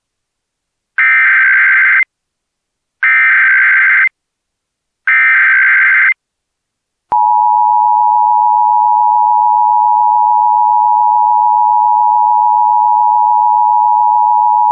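Emergency Alert System tones opening an AMBER Alert. Three one-second bursts of SAME header data come about a second apart, then the steady two-tone attention signal starts about seven seconds in and holds.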